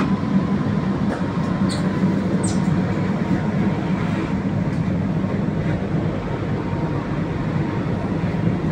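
Steady low rumble and hum inside a Standard Gauge Railway passenger coach, with a faint steady high tone and a couple of small ticks about two seconds in.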